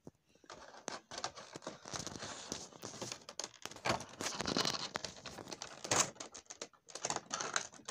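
Clear plastic packaging crinkling and crackling in quick irregular bursts as it is handled and pulled off a boxed action figure, with a brief pause near the end.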